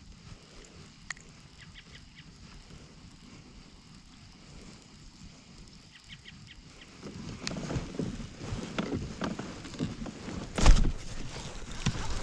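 Faint scattered clicks as a baitcasting reel is handled. From about seven seconds in there is louder rustling and knocking as the chest-mounted camera is grabbed and moved, with one loud thump near the end.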